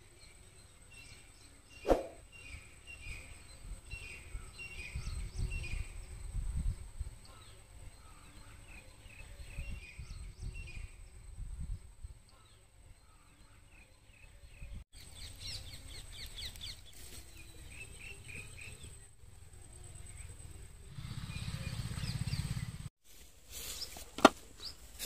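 Quiet outdoor ambience with small birds chirping, a single clink of a steel ladle against the aluminium biryani pot about two seconds in, and low rumbling noise now and then.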